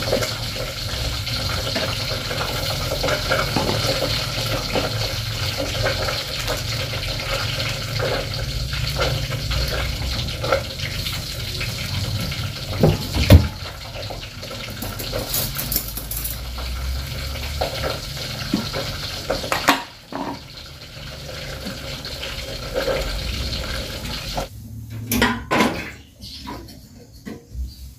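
Water running steadily, with a sharp knock of a plastic basin being set down about halfway through. The running stops near the end, followed by a few knocks and clatters of dishes and a wooden chopping board.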